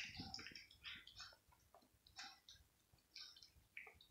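A cat chewing and licking cooked mackerel pieces in gravy: faint, irregular wet clicks and smacks of teeth and tongue, with a sharper click right at the start.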